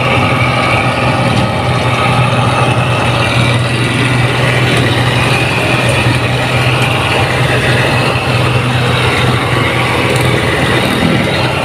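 Rice combine harvester's diesel engine running steadily, with a constant hum under a dense clatter of machinery.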